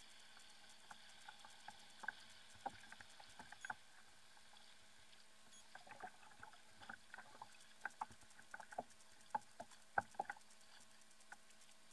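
Faint, irregular light clicks and taps from a fishing kayak and its tackle while a hooked fish is being fought on a bent rod, busiest in the second half, the loudest tap about ten seconds in, over a faint steady hum.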